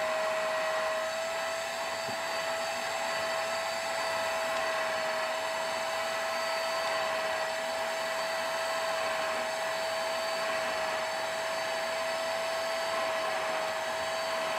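Vax SpotWash carpet cleaner running steadily: its motor holds one constant whine over a rushing suction hiss as the hand tool on its hose is worked over a stair carpet, lifting out the cleaning solution and dirt.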